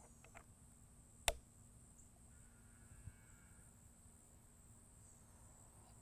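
Protective fill cap of a Benjamin Maximus PCP air rifle being fitted back over the fill port: a few small handling clicks, then one sharp click about a second in and a smaller one near the middle. A faint steady high-pitched hum sits underneath.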